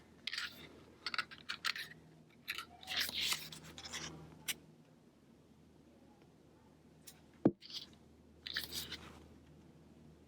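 Pages of an album photo book being turned and handled, paper rustling and crinkling in short spells, with a sharp tap about seven and a half seconds in.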